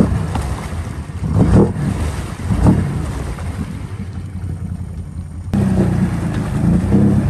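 Can-Am Outlander XMR ATV engine revving in repeated surges as it pushes through deep muddy water, with water churning and splashing around it. About five and a half seconds in, the sound jumps abruptly to a steadier, louder engine run.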